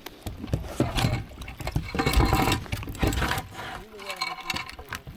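Irregular clicks, knocks and rustling of close handling noise, denser about two seconds in, with a faint voice about four seconds in.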